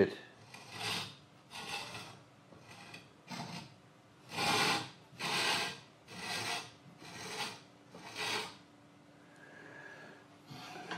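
Chisel bevel scraping against the stone of a Tormek wet sharpening machine as the wheel is turned slowly by hand, in about ten rasping strokes roughly a second apart that stop near the end. It is a dry test run to see where the marker-coloured bevel meets the stone before grinding.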